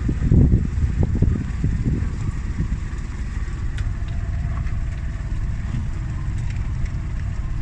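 Auto-rickshaw's small engine running as it drives along a dirt track, heard from inside the open cab: a steady low rumble, more uneven for the first couple of seconds and then evening out.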